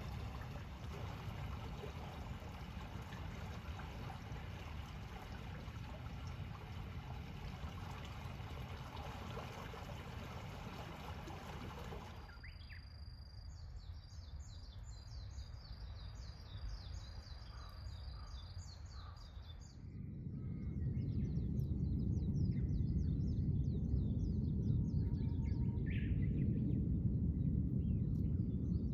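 Outdoor ambience in three stretches: first a steady rushing noise; about twelve seconds in it stops and birds chirp over a thin, steady high tone; about twenty seconds in a louder low rumble comes in under the chirping birds.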